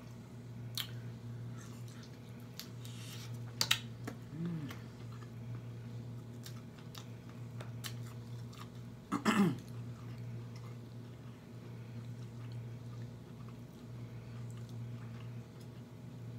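Close-up chewing and smacking of a person eating, with soft wet mouth clicks over a steady low hum. About nine seconds in comes a louder, short mouth sound whose pitch falls.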